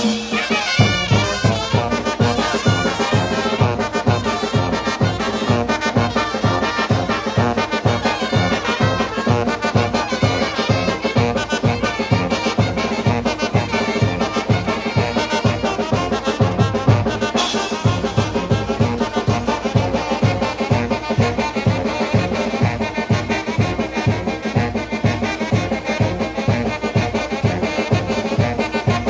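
Mexican brass band playing tlacololero dance music: trumpets and trombones carry the tune over a steady, even drum beat.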